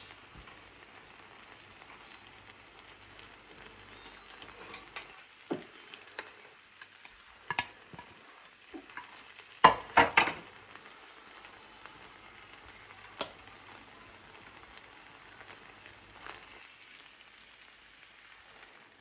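Food sizzling in a cooking pot during stirring, a steady soft hiss with scattered sharp knocks of a utensil against the pot; the loudest is a quick cluster of knocks about ten seconds in.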